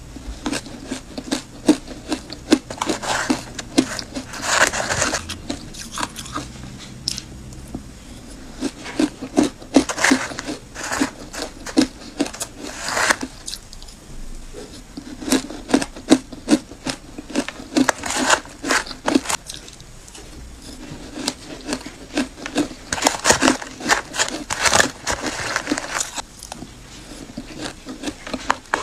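Close-miked crunching and chewing of ice dusted with matcha powder, in bursts of rapid crisp crunches with short pauses between bites.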